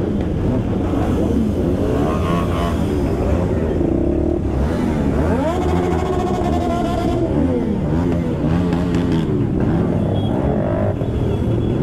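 Several motorcycle engines idling and being revved in a slow traffic jam, pitch repeatedly rising and falling as throttles are blipped.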